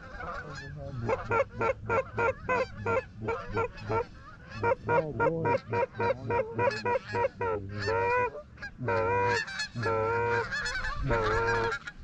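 Canada goose calling: a fast run of short clucks, about four a second, then from about eight seconds in a few longer, drawn-out honks.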